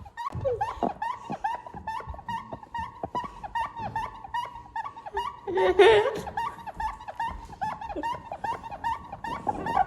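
A rapid, steady series of short high-pitched squeaks, several a second. A louder squeal comes about six seconds in.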